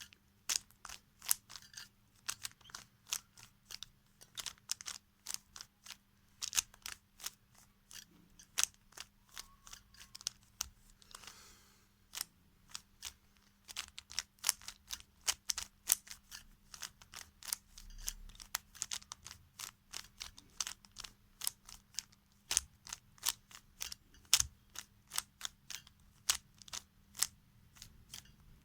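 Rubik's cube layers being twisted by hand: a rapid, irregular run of sharp plastic clicks, several a second, with a short break about eleven seconds in.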